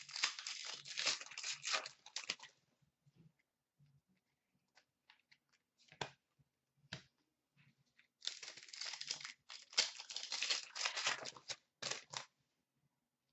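Hockey card packs' wrappers being torn open and crinkled, in two spells of crackling rustle about six seconds apart, with a few faint clicks in between.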